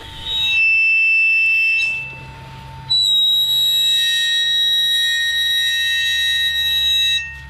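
High-pitched, steady squeal of a Volvo V60 Hybrid's brake disc rubbing against the sheet-metal dust shield behind it as the hub turns with the wheel off. It comes in two long spells about a second apart, the second the longer. The cause is a foreign object wedged between the shield and the disc.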